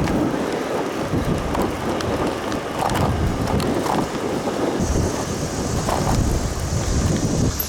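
Wind buffeting the microphone of a camera carried on a moving bicycle: a steady low rush of wind and riding noise.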